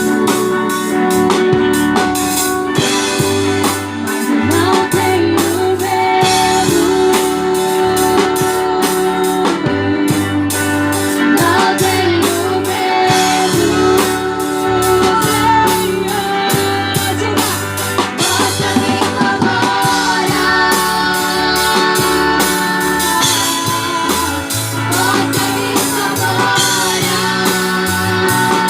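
A worship band playing: drum kit, guitar and bass with a sung melody over them, at a steady beat.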